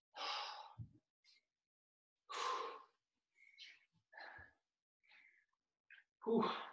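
A man breathing hard after exercise: three heavy sighing exhales, near the start, about two seconds in and near the end, with a few faint knocks and rustles between them.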